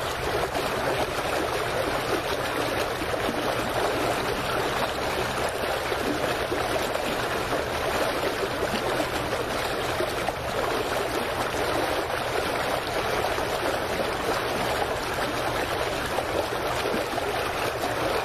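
Small waves lapping and sloshing against a dock, a steady, even watery wash with no pauses.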